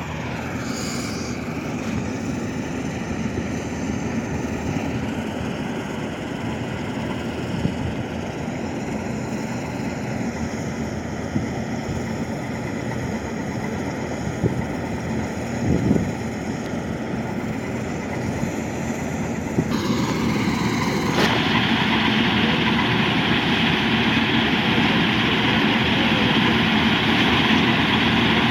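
Combine harvester running steadily while harvesting rice. About two-thirds of the way through, the sound gets louder and brighter, with a stronger hiss on top.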